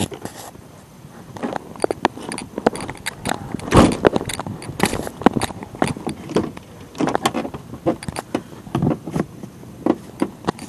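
Irregular clinking and clattering, many sharp clicks in quick, uneven succession.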